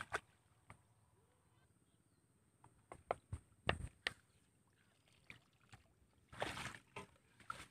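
Shallow pond water splashing and sloshing as hands reach into it, with scattered short clicks and knocks and one longer splash near the end.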